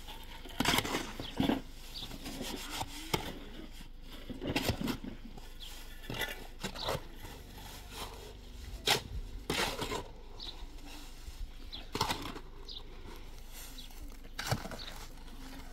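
Irregular knocks and scrapes of hand work with tools and building materials, about ten spread unevenly over the stretch, with no machine running.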